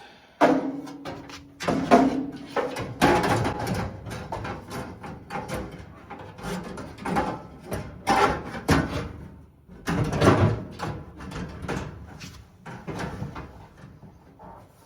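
Sheet metal of a Samsung dryer's heating element assembly clanking and scraping in irregular knocks as it is handled and forced into place inside the cabinet, with a brief metallic ring near the start.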